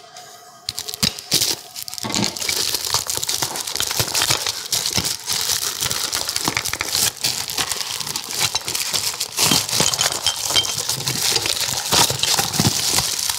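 Packaging being handled and unwrapped: continuous crinkling and rustling with many small clicks, starting about two seconds in.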